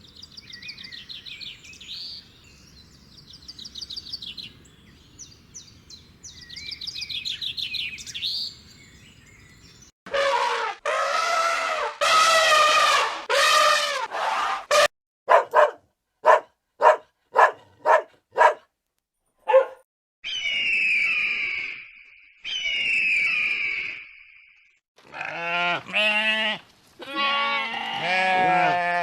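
A run of different animal calls: high twittering bird-like calls for about the first ten seconds, then loud long pitched calls, a quick series of short sharp calls, two falling calls, and two long low calls near the end.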